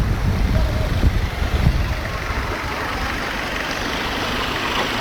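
Boat engine running, with wind gusting on the microphone in the first couple of seconds before the sound settles into a steady drone.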